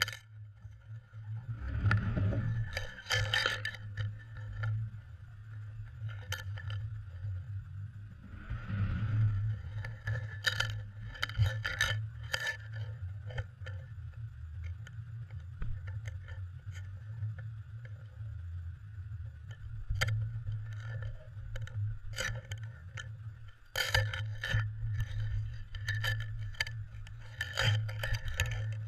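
Underwater sound from an action camera in its waterproof housing, mounted on a cod jigger: irregular clicks, clinks and scrapes as the metal jigger and hook knock about on the line, over a steady low hum. Two louder rubbing swells come about two and nine seconds in.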